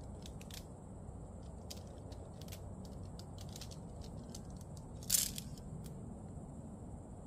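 Tent parts and stuff sacks being handled while unpacked: scattered small clicks and light rustling, with one brief, louder rustle or scrape about five seconds in.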